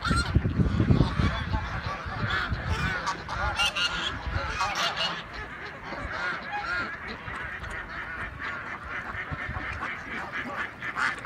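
A flock of Canada geese honking, many calls overlapping without pause, with mallard ducks among them. A low rumble sits under the calls during the first three seconds.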